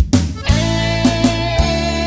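Instrumental passage of a forró band recording: a drum stroke, then about half a second in the full band comes in with held chords over a bass line.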